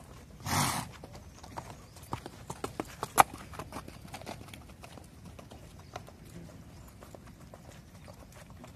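Horses' hoofbeats on a dirt riding arena as the horses trot and canter past. A short loud rush of noise comes about half a second in, and a cluster of sharp clicks follows around two to three seconds in, one crack the loudest sound of all.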